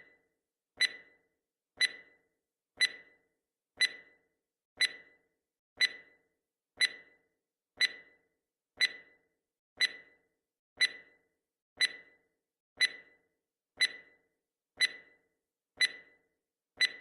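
Countdown timer's clock-tick sound effect, one sharp tick each second, each with a brief ring that dies away quickly.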